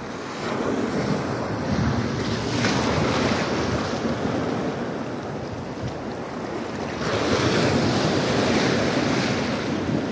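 Shallow sea surf washing and foaming around the wader's legs. The rush swells twice, about half a second in and again about seven seconds in.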